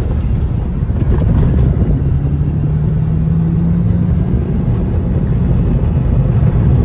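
Qvale Mangusta's Ford 4.6-litre V8, the Mustang Cobra engine, heard from inside the cabin while driving. The engine note holds steady for a few seconds over constant road noise.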